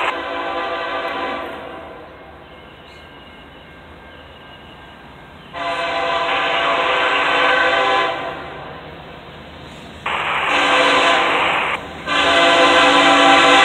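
Norfolk Southern locomotive air horn sounding the grade-crossing signal as the train approaches: the tail of a long blast, then a long blast, a short one, and a final long one that is still sounding at the end. Each blast is a chord of several steady notes.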